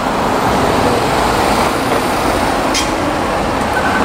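Loud city street traffic, with a large vehicle's engine running close by. A thin steady whine comes in near the end.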